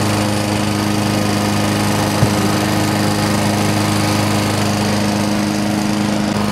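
Small engine running steadily and close up, with one short knock about two seconds in.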